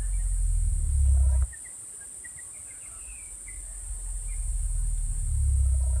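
Southern cassowary booming: a deep, low rumble that swells and cuts off suddenly about one and a half seconds in, then a second rumble that builds from about three and a half seconds in. A steady high insect drone runs underneath, and small birds chirp briefly between the rumbles.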